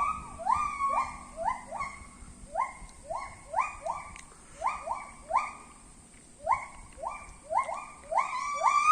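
A primate calling from the trees: a run of short rising hoots, about one a second, some coming in quick pairs, getting louder near the end.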